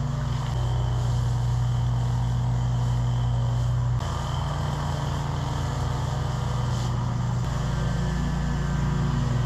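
A mower's engine running steadily at constant speed, a low, even drone. Its tone changes abruptly about half a second in, at about four seconds and again near seven and a half seconds.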